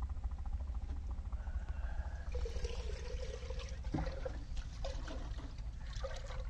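Water being poured and splashed by hand, starting about two seconds in, over a steady low rumble, with a sharp knock about four seconds in.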